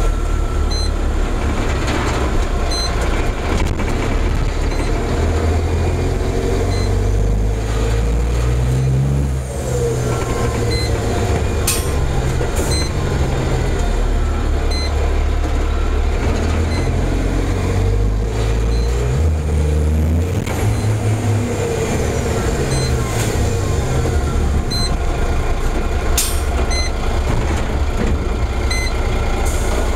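Heavy truck's diesel engine heard from inside the cab, running hard and revving up and down as the truck is driven around in drifts. A few short sharp sounds cut through, and a faint high beep repeats regularly throughout.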